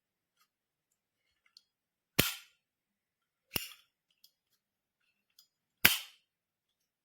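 Three sharp clicks, about two seconds in, a second and a half later, and again near the end, with faint small ticks between them.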